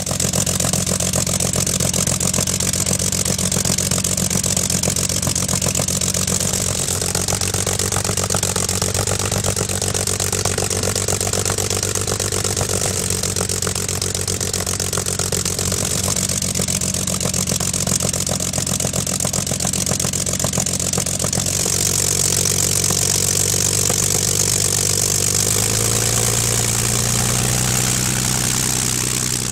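Austro-Daimler straight-six aero engine and propeller of an Albatros D.III replica running steadily on the ground, the engine speed rising a little near the end.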